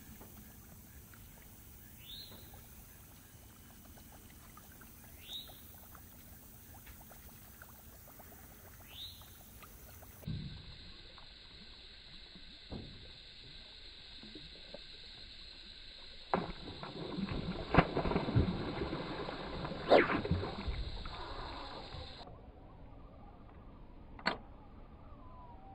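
A bass blowing up on a topwater lure: a burst of heavy splashing in the water a little past the middle, loudest in two big splashes. Earlier come three short rising chirps among faint ticks, and near the end a single sharp click.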